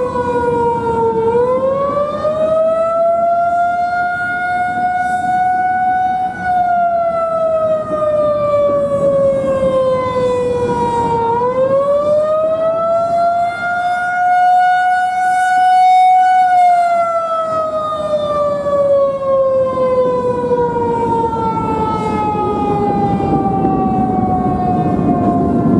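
Federal Signal 2001-130 outdoor warning siren sounding its attack signal: a wail that rises and falls in pitch, twice in about ten-second sweeps, then slides down in one long slow fall near the end. The loudness swells once, around two-thirds of the way through, as the rotating head turns toward the listener.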